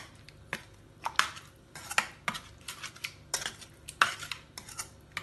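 Metal spoon stirring a thick yogurt mixture in a stainless steel kadai, clinking and scraping against the pan in irregular strokes, several a second.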